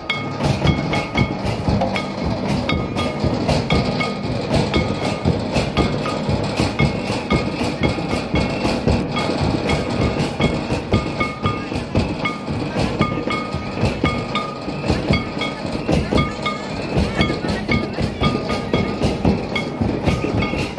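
Music for a Santali lagne chain dance: fast, steady drumming with short, bright ringing notes over it.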